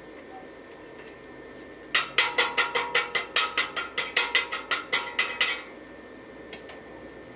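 A quick run of metal-on-steel taps, about five a second for some three and a half seconds, each strike ringing.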